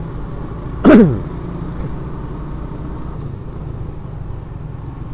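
Motorcycle running at low speed with steady engine and road hum, and about a second in the rider gives one loud cough into the helmet microphone, falling in pitch.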